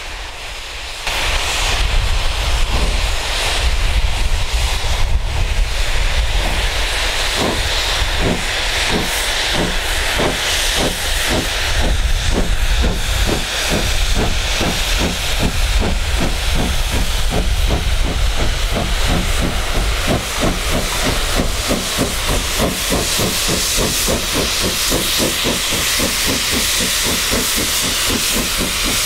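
LMS Fowler 3F 'Jinty' 0-6-0T steam locomotive pulling away with a passenger train under load. Its steady exhaust chuffs quicken to a few beats a second as it draws near, over a low rumble.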